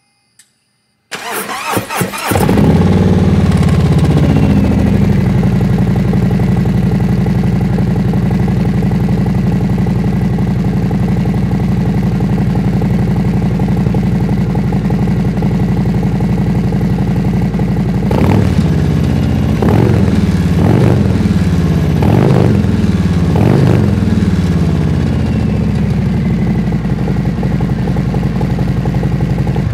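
Harley-Davidson touring motorcycle's V-twin through Khrome Werks 4.5-inch HP-Plus slip-on mufflers, started from cold: the starter cranks for about a second, then the engine catches and settles into a steady idle with a deep growl. About two-thirds of the way through it is blipped five times, each rev rising and falling back, then idles on.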